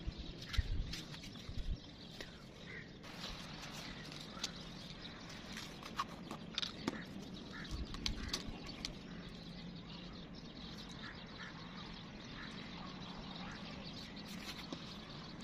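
Birds calling in the background: short, scattered calls over a steady low hum.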